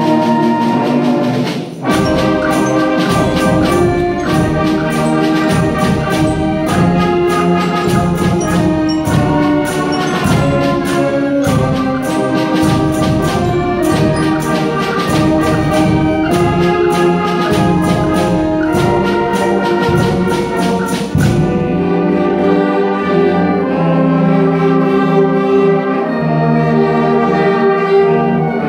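School concert band of woodwinds, brass and percussion playing a fast piece with sharp, regular beats under the full ensemble. About 21 seconds in, the beats drop out and the band goes on with held chords.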